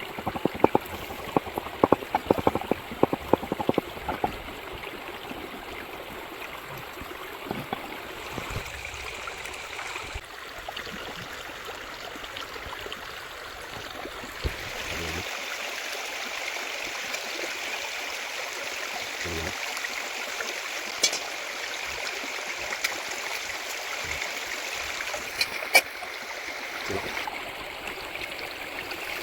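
A stream of running water, babbling and gurgling steadily, growing a little louder about halfway through. In the first few seconds there is a quick run of sharp clicks or taps, with a few single clicks later on.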